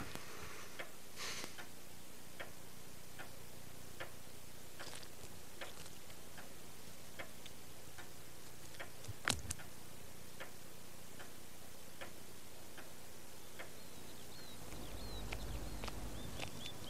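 Clock ticking slowly and steadily, about one tick every 0.8 s, with one louder knock about nine seconds in. Small high chirps and a low rumble come in near the end.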